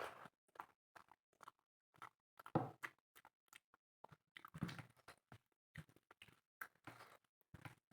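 Close-up eating sounds: chewing and lip smacks on a mouthful of spicy chicken and rice, a run of short irregular clicks and smacks, loudest about two and a half seconds in and again near five seconds.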